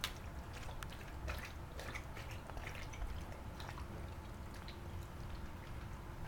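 A dog lapping and splashing water in a plastic kiddie pool, making scattered small splashes and drips.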